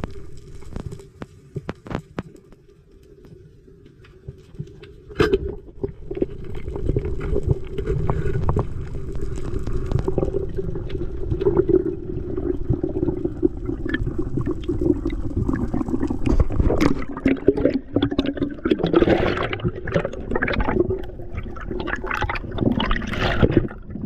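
Muffled gurgling and sloshing of water. It is faint for the first few seconds, then louder from about five seconds in, with busier splashy bursts in the second half.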